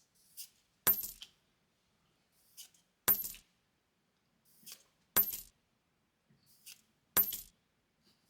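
Four sharp metallic clinks, like a coin dropping, evenly spaced about two seconds apart, each preceded by a softer swish.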